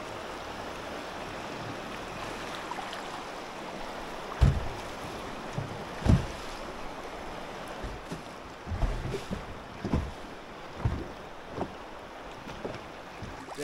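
Rushing river water and wind noise around a drifting boat moving through a choppy run, with several dull thumps, the loudest about four and a half and six seconds in.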